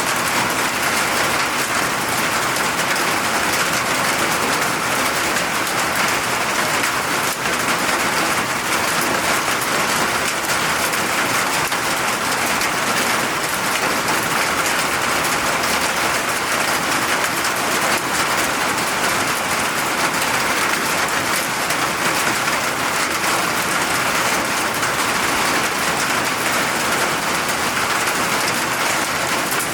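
Steady rain falling, an even hiss of many drops with fine pattering ticks.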